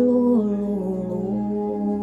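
Sámi yoik sung over a steady held drone. The voice holds a note, then slides down to a lower one about half a second in.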